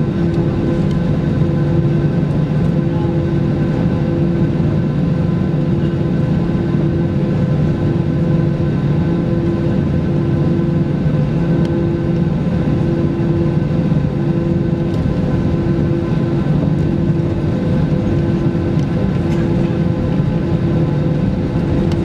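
Cabin noise of a taxiing Airbus A320-214, its CFM56-5B engines at idle: a steady low drone with a few constant tones. A higher tone pulses on and off about once a second.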